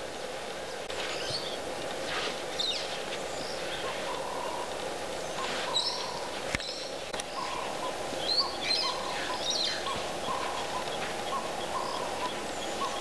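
Wild birds calling in the bush: scattered short high chirps, and from about a third of the way in a short lower call repeated about every two-thirds of a second, over a steady background hum. A single sharp click about halfway through.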